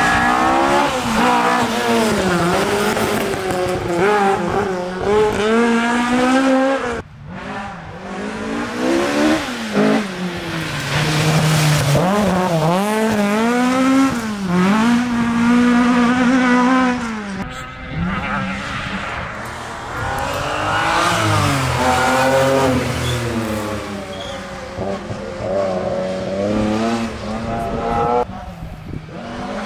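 Historic Ford Escort rally cars driven flat out, one after another. Each engine revs high and drops back with every gear change and lift, and the sound cuts sharply from one car to the next about three times.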